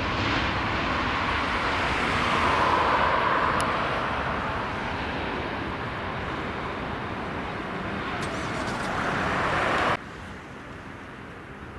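Airliner jet engines running loud as an Airbus A319 moves away, a steady rushing noise that swells a few seconds in and again later. About ten seconds in, the sound drops abruptly to a quieter steady rumble.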